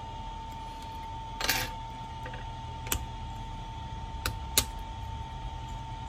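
Small plastic clicks and a short scrape from fingers working the opened tablet's plastic cover and parts free. There is a brief scraping rasp about one and a half seconds in, then three sharp clicks, two of them close together near the end. Under it all runs a steady high-pitched tone and a low hum.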